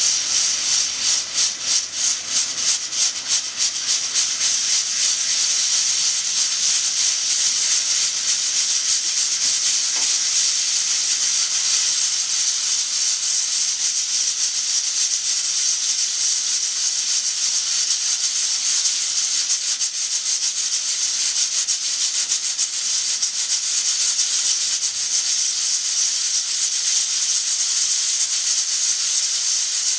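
Pressure cooker at full pressure, steam hissing steadily from its weighted pressure valve while the weight rattles on the vent. The hiss pulses about two to three times a second for the first few seconds, then runs evenly with a fast rattle.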